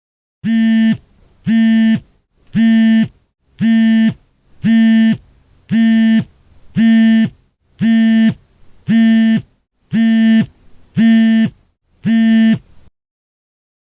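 Telephone busy signal: a harsh, buzzy tone pulsing on and off about once a second, each pulse about half a second long, about a dozen times before it stops.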